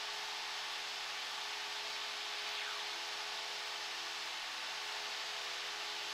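Cessna 172 Skyhawk in flight: its engine, propeller and airflow drone, heard through the aircraft intercom audio feed as a steady hiss with a few steady low hums.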